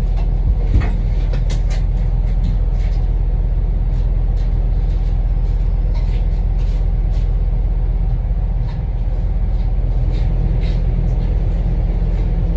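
An engine running steadily with a low rumble, with scattered light clicks and taps over it.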